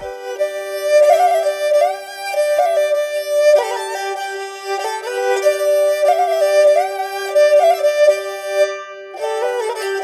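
Background music: a lilting melody with vibrato over a steady held note, with no bass or beat.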